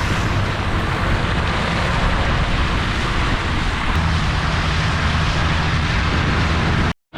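A vehicle running, with a steady loud rushing noise over a low engine drone. The sound cuts off abruptly near the end.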